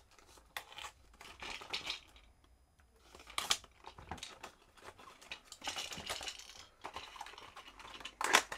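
A cardboard lure box being slit open with a folding knife, then a clear plastic blister pack slid out and handled. There is a run of irregular scrapes, tearing and plastic crinkling, loudest at about three and a half seconds and again just before the end.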